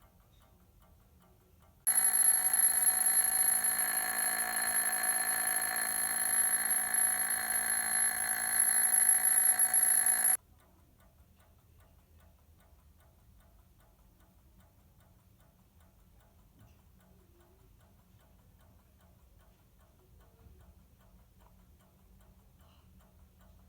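Soviet «Slava» electromechanical alarm clock: soft, regular ticking, then its alarm starts abruptly about two seconds in, rings loud and steady for about eight seconds, and cuts off suddenly, leaving the faint ticking.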